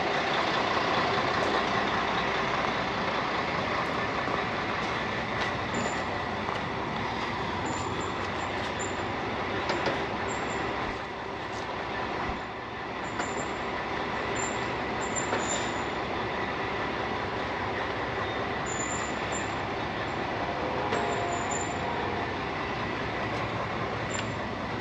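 Truck engine running steadily.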